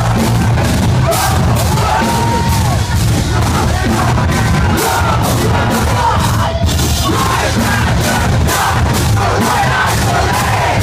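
A metal band playing live at full volume, with drums pounding at a steady beat and shouts over the music. The sound is loud and harsh, as recorded on a phone in the crowd.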